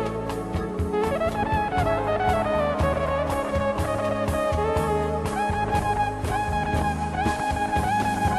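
Background music: a jazzy tune with brass lead and drum kit keeping a steady beat.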